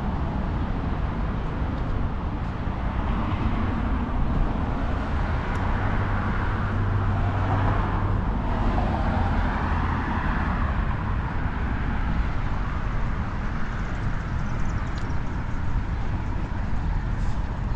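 Downtown street traffic running steadily. A vehicle passes between about five and ten seconds in, with a low engine hum rising and fading.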